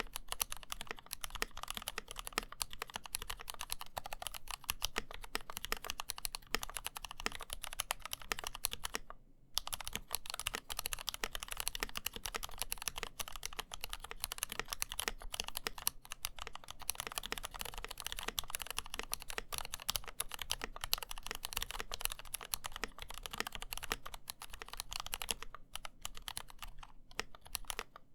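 Mechanical keyboard typing: an NK65 Entry with unmodified, factory-lubed Gateron CAP Milky Yellow linear switches and NovelKeys VaporWave keycaps, clacking keystroke after keystroke. There is a brief pause about nine seconds in, and the keystrokes thin out near the end.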